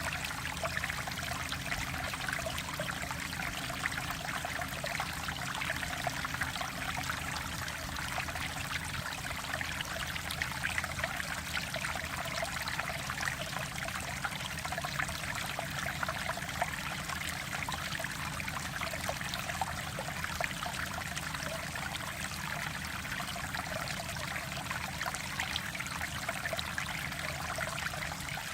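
Mountain stream water flowing and burbling over rocks, a steady rush with constant small splashes.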